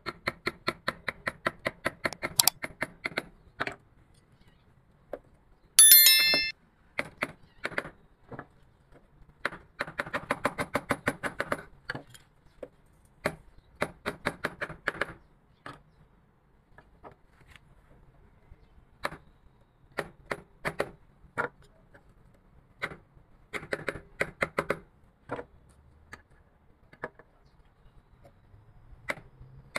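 Carving chisel struck with a mallet into wood, in quick runs of light taps, several a second, with pauses between runs. A brief metallic ring about six seconds in.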